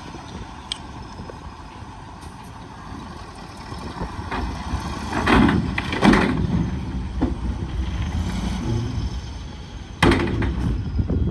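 Bulldozer engine running under a steady low rumble, with loud short clanks about five seconds in, again a second later, and once more near the end.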